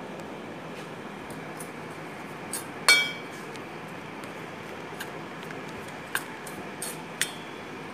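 Metal spoon clinking and scraping against a steel bowl while stirring a dry powder mix. One loud ringing clink about three seconds in, then a few lighter taps.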